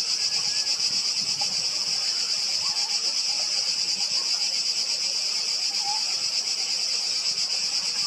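Chorus of cicadas: a loud, steady, high-pitched buzz with a fine rapid pulse, unbroken throughout.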